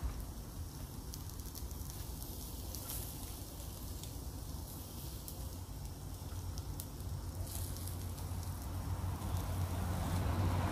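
Pork chop frying in a pan over a fire basket: a soft sizzle with scattered small crackles over a steady low rumble, the sizzle growing louder near the end.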